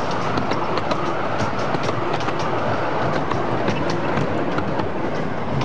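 Passenger carriages of a 10.25-inch gauge miniature railway rolling past, a steady rumble with frequent sharp clicks from the wheels on the rails.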